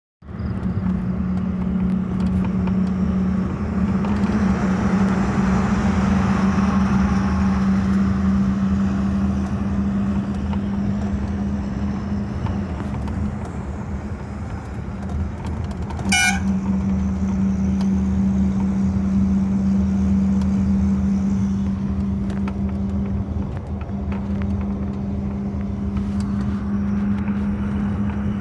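A vehicle travelling along a highway, heard from on board: a steady low drone with road and wind noise. A short horn toot comes about sixteen seconds in.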